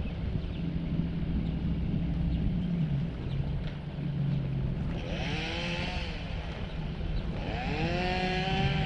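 A motor running steadily, its pitch swelling up and back down twice in the second half.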